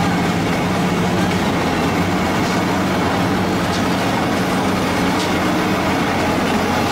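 Lindner Urraco 95 D mobile scrap shredder running steadily: a diesel drone with the grinding clatter of scrap metal being shredded, and a few faint clanks.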